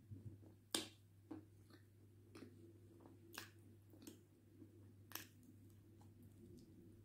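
Eating a chunk of pressed white clay dipped in red clay slurry: faint wet mouth and lip sounds broken by about six sharp clicks, the loudest about a second in, as the chunk is dipped and bitten.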